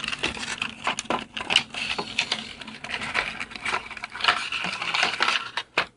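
Small earphone box packaging being torn open by hand: dense, irregular crackling and tearing with many small clicks.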